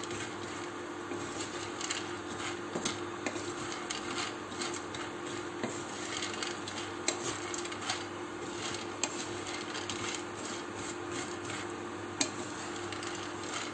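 Wooden spatula stirring and scraping whole-wheat fusilli around a nonstick frying pan as the pasta toasts, the pieces clicking and rattling against the pan in irregular strokes. A steady low hum runs underneath.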